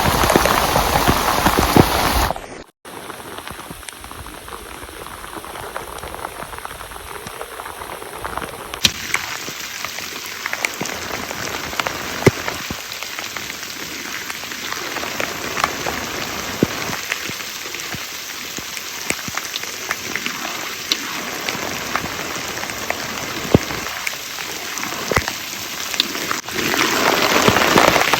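Heavy rain falling, with many sharp ticks of single drops hitting a surface. It is loud at first, cuts out for a moment about two and a half seconds in, then goes on softer, and swells loud again near the end.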